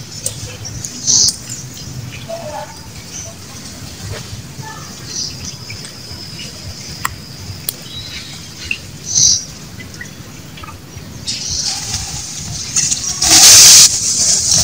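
Outdoor ambience with scattered high bird chirps over a low background rumble, and a loud half-second rush of hiss near the end.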